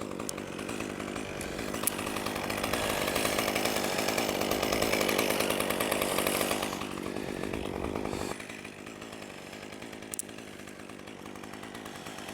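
Chainsaw engine running at speed for several seconds, then dropping abruptly to a lower idle about eight seconds in.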